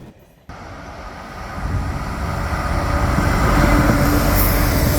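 Irish Rail 201 class diesel locomotive hauling a Mark IV passenger train past, the rumble of engine and wheels growing louder about a second and a half in and staying loud.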